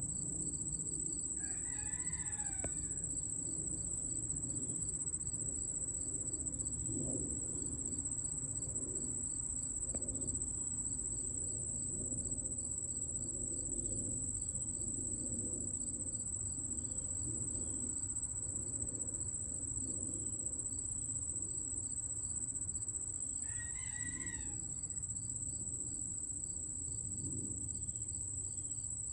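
Outdoor insect chorus of crickets: a steady high trill with a rapidly pulsing chirp beneath it. A rooster crows twice, once about two seconds in and again near the end.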